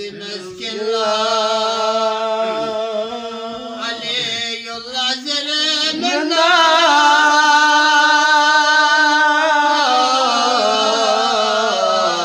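Unaccompanied male singing of a devotional Sufi qasida, in long held notes that step up and down in pitch.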